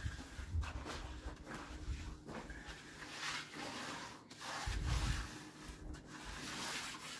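Repeated rubbing or scraping strokes, roughly one a second, with a low rumble about five seconds in.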